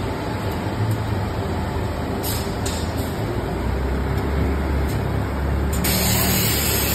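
JT-SLT paper slitter rewinder running steadily, a printed paper web feeding over its rollers: a continuous mechanical running noise with a low rumble, turning hissier and slightly louder near the end.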